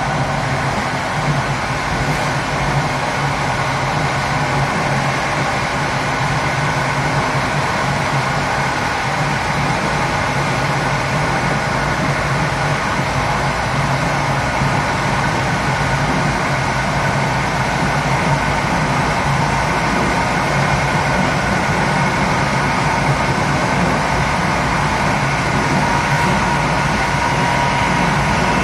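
Running noise of a passenger train's last coach at speed: wheels on the rails making a steady, even noise with a constant hum of tones mixed in.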